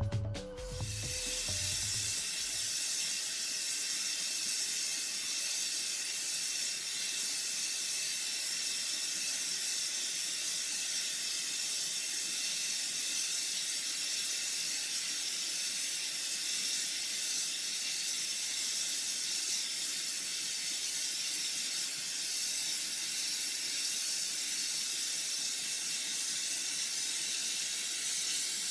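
Leaking oil wellhead spraying under pressure, a steady jetting hiss.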